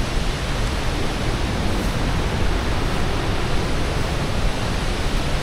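Steady rushing roar of a large waterfall: an even, unbroken wash of falling water.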